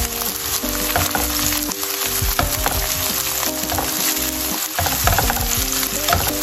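Diced onion and red bell pepper sizzling in oil in a non-stick frying pan while a silicone spatula stirs them, scraping and tapping against the pan. Background music plays underneath.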